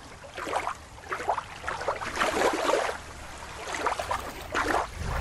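Shallow water lapping and splashing in uneven washes over a low steady rumble, with a small splash near the end as a toy drops into the water.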